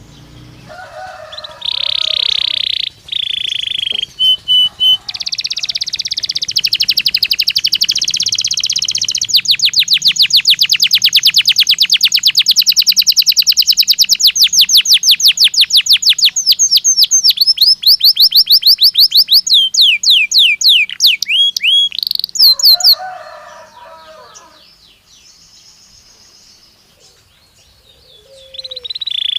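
Domestic canary song: one long, loud phrase of trills. Buzzy rolls run into a rapid, even trill that slows into separate sweeping notes and stops about 23 seconds in. The bird starts again near the end after a few quieter seconds.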